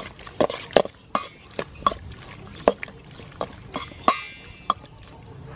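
Raw squid pieces being tossed and mixed by hand with seasoning in a stainless steel bowl: wet squelching with irregular sharp taps and clinks against the metal bowl, the loudest a little after four seconds in.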